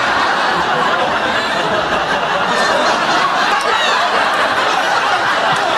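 Audience laughing hard and without a break, a dense wall of laughter from many people.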